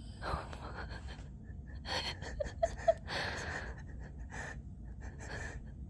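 A Yorkshire terrier sniffing at a piece of sweet potato held to her nose: a string of short breathy sniffs and breaths, with three quick little squeaks just before the middle.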